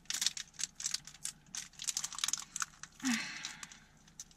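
Foil wrapper of a Pokémon booster pack crinkling and crackling in quick clicks as it is opened by hand, with a longer rustle about three seconds in.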